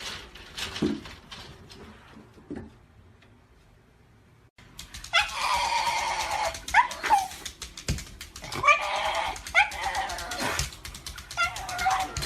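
A dog whining and yelping in a run of short, high, wavering cries that starts suddenly about a third of the way in; before that, only faint clicks and knocks.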